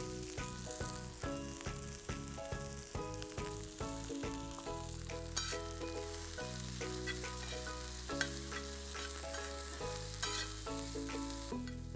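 Sliced onion, cumin, broken dried red chillies and curry leaves sizzling in hot coconut oil on a dosa griddle, stirred now and then with a spatula. Soft background music with sustained chords plays underneath.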